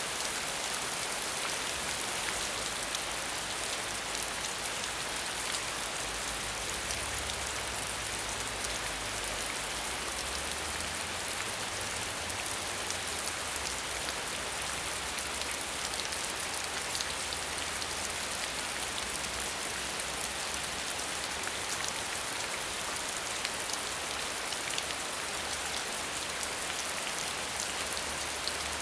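Steady rain falling on hard surfaces: an even hiss dotted with the fine ticks of individual drops.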